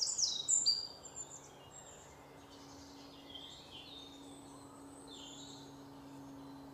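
Small birds chirping: a burst of quick, high, downward chirps in the first second, then scattered fainter calls, over a steady low hum and faint outdoor background noise.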